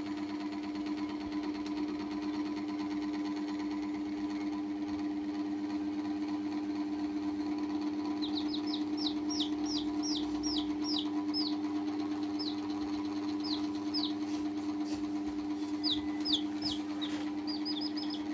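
Baby chicks peeping in quick series of short, high, falling peeps, starting about eight seconds in, over a steady machine hum with a strong low tone. A few light taps come near the end.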